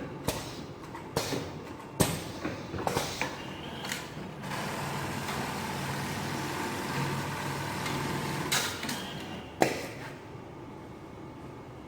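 Automatic curtain pinch-pleating machine working: a run of sharp mechanical clacks, then a few seconds of steady running with a low hum, then one loud clack.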